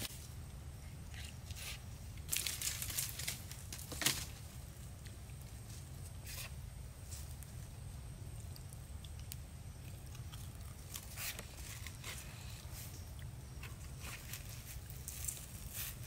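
Dry bamboo leaf litter crackling and rustling now and then under a person's steps and knees, and as they handle a fish, over a steady low rumble.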